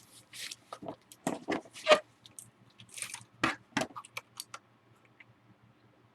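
Irregular rustling and crinkling of packaging with scattered light knocks and clicks as a keyboard is unwrapped and handled, loudest in two clusters in the first half and fading toward the end.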